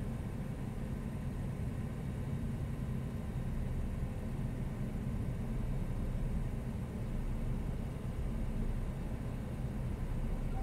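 A stopped car idling: a steady low engine rumble with no revving.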